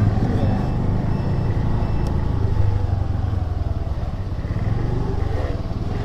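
Honda Dio 110 cc scooter's single-cylinder engine running as it rides along, under a steady low rumble of wind and road noise on the microphone.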